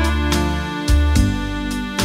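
Instrumental background music: sustained pitched notes over a deep bass line, with new notes struck several times.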